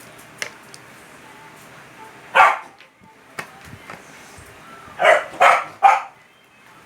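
A dog barking: one bark about two seconds in, then three quick barks near the end.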